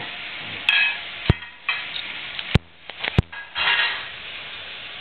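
Puppy and dogs tugging at a rope toy on carpet: noisy scuffling in short bursts, with several sharp knocks.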